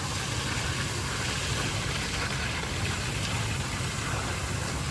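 A machine's engine running steadily with a low rumble.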